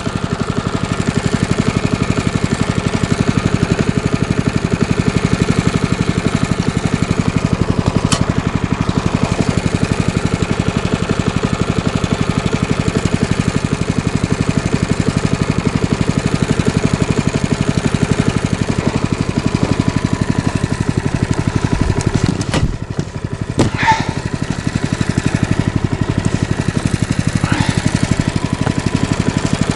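Small petrol engine of a snow vehicle, freshly started after priming, running steadily with a fast, even beat. The level dips briefly about 22 seconds in, then the engine picks up again.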